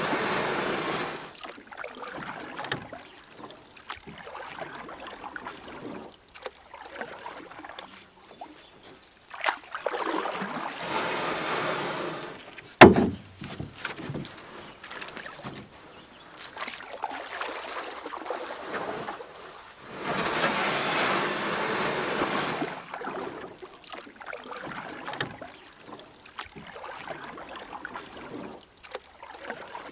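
Paddling a kayak: water sloshing and splashing from the paddle in three longer bursts about ten seconds apart, with lighter drips and small clicks between. One sharp knock comes about thirteen seconds in, the loudest sound of the stretch.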